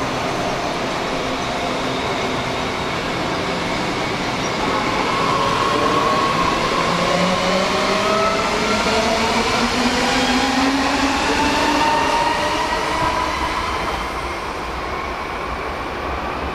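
A DB S-Bahn electric multiple unit pulling away and accelerating, its traction motors giving a whine in several tones that rise steadily in pitch over rumbling wheel-on-rail noise. It is loudest in the middle and eases off after about fourteen seconds.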